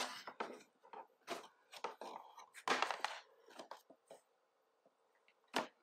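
Cardboard box and paper packaging being handled: irregular rustles, scrapes and light knocks as items are lifted out, with one sharp click near the end.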